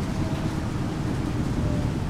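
Thunderstorm: a low, continuous rumble of thunder over the steady hiss of rain, with the faint tone of a distant tornado siren dying away about half a second in.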